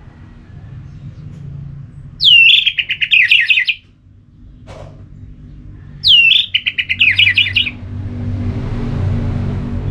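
Orange-headed thrush singing two loud song phrases about four seconds apart. Each opens with a falling whistle and runs on into a fast, jumbled string of notes.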